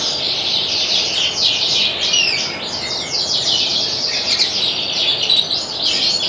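Domestic canary singing a continuous, rapid song of fast chirps and rolling trills without pause.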